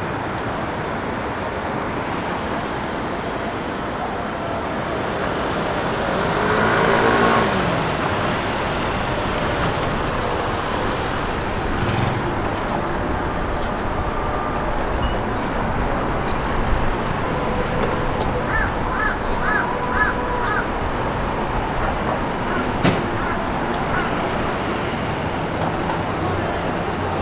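Busy city street ambience: steady road traffic noise, with a louder swell about seven seconds in and a quick run of four high chirps later on.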